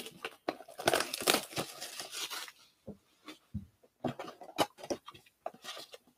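Plastic-and-foil trading card packs crinkling as they are handled and moved around on a table, a dense rustle for the first couple of seconds, then scattered rustles and light taps as packs are set down.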